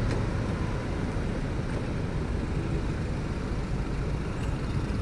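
Road traffic: a steady low rumble of engines in slow, close city traffic, heard from a motor scooter creeping behind a box truck.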